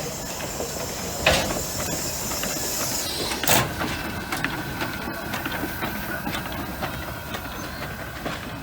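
Coal-burning steam locomotive standing and hissing steam, with two sharp knocks, one about a second in and a louder one about three and a half seconds in. A faint steady whine runs from about four seconds in to near the end.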